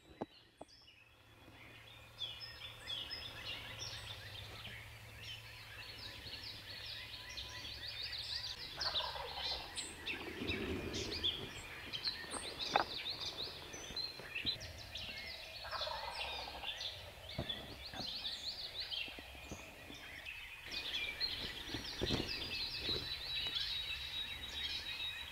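Wild turkey gobbler gobbling, with a loud rattling gobble about nine seconds in and another about sixteen seconds in. Songbirds chirp throughout.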